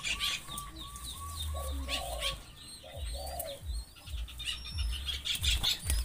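Zebra doves cooing, two short coos about a second apart, over a run of short, evenly repeated calls at about four a second and the higher chirps of other small birds.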